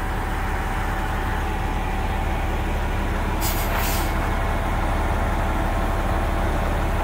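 Mitsubishi MG300 road grader's diesel engine running steadily, with two short hisses about three and a half and four seconds in.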